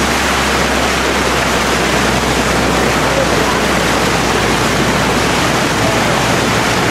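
Floodwater rushing and splashing steadily as a vehicle wades through it, a loud continuous wash of water noise. A low hum underneath fades out near the end.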